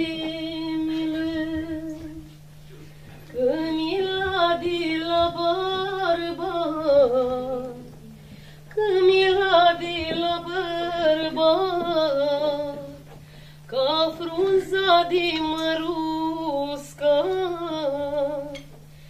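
A woman singing a slow, ornamented folk melody with no instruments heard, in four long phrases broken by short breaths, over a steady low hum.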